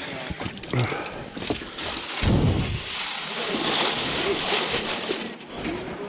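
Water sloshing and splashing as a wire-mesh screen of gravel is set into a tub of water and worked back and forth, with a low thump a little over two seconds in.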